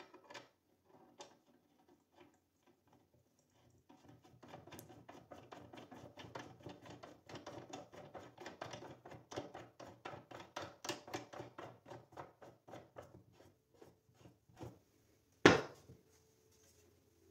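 The wooden handle of a homemade table saw fence is spun on its threaded rod, giving a long run of quick wooden and metal clicks and rattles from the threads. About a second and a half before the end there is one loud, sharp wooden knock.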